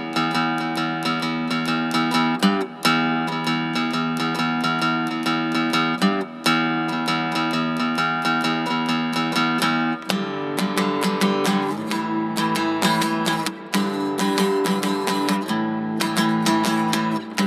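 Background music: a strummed acoustic guitar, with the chords changing about ten seconds in.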